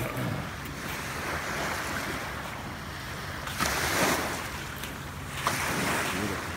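Small waves lapping and washing up on a gravelly freshwater shore, with wind buffeting the microphone; two louder washes come about halfway through and again near the end.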